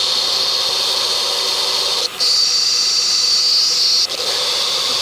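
Power steering pump buzzing, heard amplified through an electronic mechanic's stethoscope as a steady hissing whine. From about two seconds in it grows brighter for about two seconds, with a brief dropout at each change. The buzz is the sign of a failing power steering pump.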